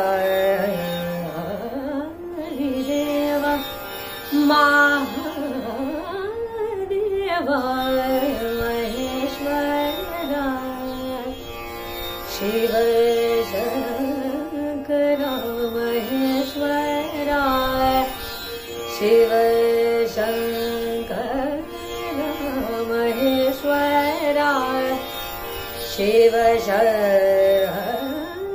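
A woman singing Hindustani classical vocal music, long phrases of held notes and sweeping glides that rise and fall in pitch, over a steady drone.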